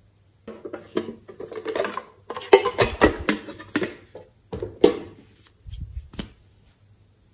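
A plastic marker-style pen handled close to the microphone: an irregular run of clicks, taps and rubbing of its barrel and cap, ending a little after six seconds in.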